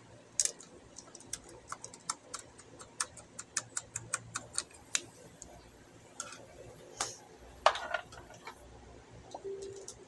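Sharp, irregular clicks and light taps of small hard objects, two or three a second for the first five seconds, then a few scattered ones. The loudest comes about three-quarters of the way in, with a short rattle after it.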